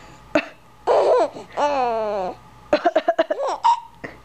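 A woman's put-on coughs, then a baby laughing in a quick run of short bursts that ends in a high squeal.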